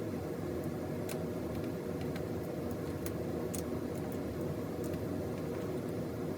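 A steady low background hum with a few light scattered clicks and ticks, like small parts and tape being handled.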